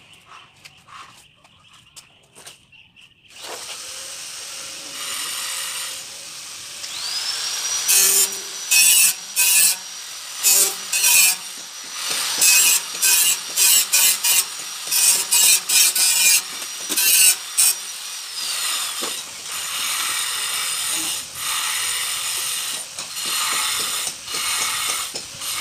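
Handheld electric power tool: its motor whines up about seven seconds in and runs for roughly ten seconds in short, harsh bursts as it works, then winds down.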